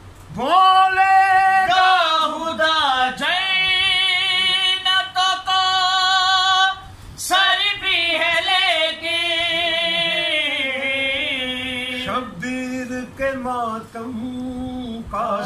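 A man singing a devotional song unaccompanied, in long held notes with heavy wavering and sliding ornaments, in two long phrases with a short break about seven seconds in.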